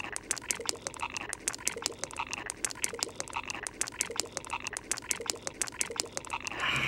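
A steady chorus of rapid croaking clicks, many a second, with faint chirps repeating about twice a second, like a frog chorus.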